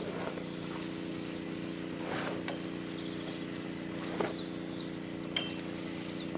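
A steady engine drone, like a diesel idling, runs throughout. A few sharp clicks and knocks from the deck and rigging come as the genoa is hoisted, about two, four and five and a half seconds in.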